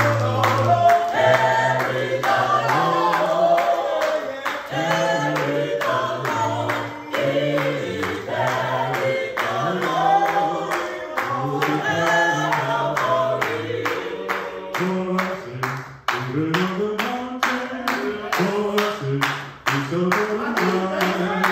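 Gospel choir of men's and women's voices singing together, with steady rhythmic hand-clapping keeping the beat.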